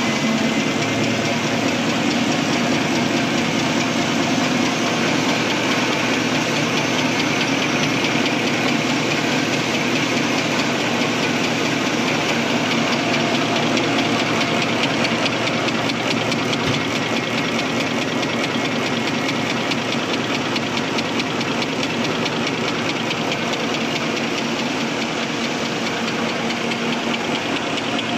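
XY-OQ-7000K double-deck automatic serviette napkin folding machine running in production, a steady, fast mechanical clatter from its folding mechanism.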